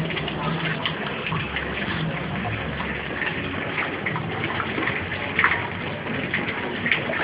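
Water pouring in a steady gush, with small splashes throughout.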